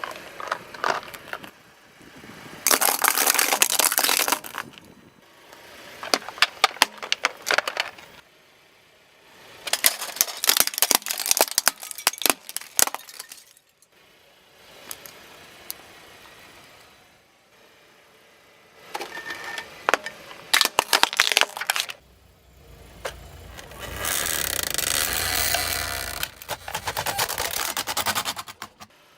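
Objects cracking and crunching as a car tyre rolls over them, in several bursts of sharp cracks and crackling separated by quieter pauses. The longest burst, near the end, sits over a low engine rumble.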